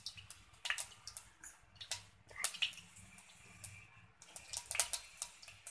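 Mustard seeds spluttering in hot oil in a kadhai: irregular sharp pops and crackles, sometimes several in quick succession, over a faint hiss. The spluttering is the tempering cue that the oil is hot and the seeds are done, ready for the cumin.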